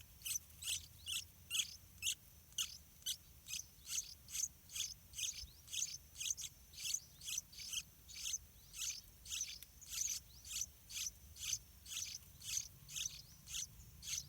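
Yellow-vented bulbul nestlings begging: a steady run of short, raspy, high-pitched calls, about two a second.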